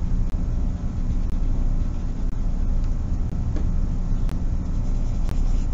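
A steady low rumble, with faint rubbing of a kneaded eraser on drawing paper as it lifts charcoal off a dark square.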